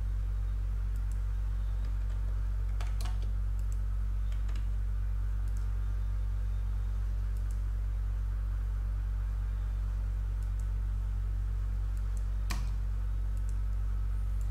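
Steady low electrical hum under a few scattered computer mouse and keyboard clicks, the clearest about three seconds in and again near the end.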